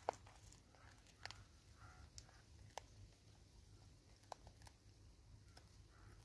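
Scattered faint clicks and ticks, the sharpest one at the very start, as a vervet monkey scoops birdseed out of a cut plastic bottle feeder and chews it, over near silence.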